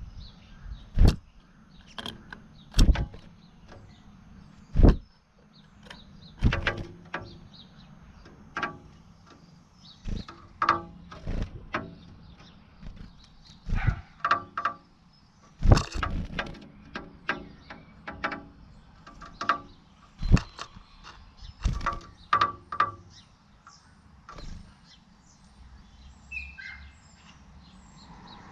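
Blue tit pecking at glass in its fight with its own reflection: sharp, irregular taps, now single, now in quick runs of two or three, with short pauses between.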